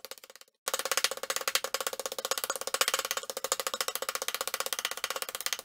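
Background music with a fast, even percussive beat; it drops out for a moment about half a second in, then carries on.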